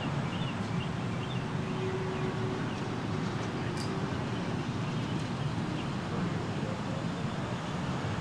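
Electric streetcar running along the track at a distance, a steady low rumble, with a few bird chirps near the start.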